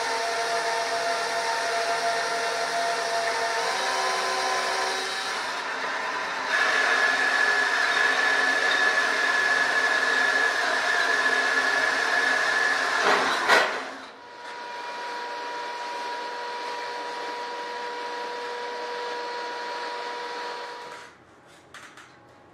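Cordless drill drilling out aluminium rivets in an aircraft wing spar: a steady motor whine that rises in pitch and gets louder about six seconds in, with a short harsh burst just before fourteen seconds. It then runs quieter until it stops about twenty-one seconds in, followed by a couple of faint clicks.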